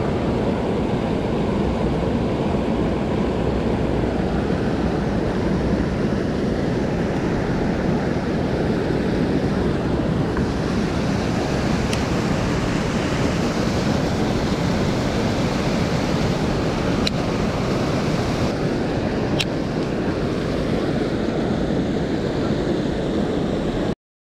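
Steady rush of water pouring over a low dam spillway into churning whitewater, with a few faint clicks; the sound cuts off suddenly near the end.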